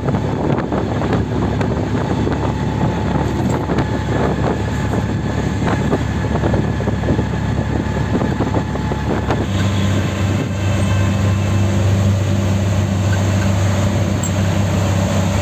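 Riding in a moving auto-rickshaw: its small engine running, with wind and road noise coming in through the open sides. About two thirds of the way in, a steady low engine hum becomes much stronger.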